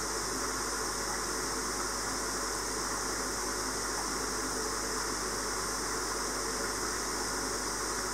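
Steady, unchanging hiss with a faint low hum underneath.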